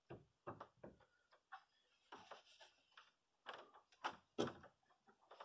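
Climbing shoes and hands knocking and scuffing against holds on a plywood bouldering wall, in an irregular string of short taps and scrapes, a little louder around the fourth second.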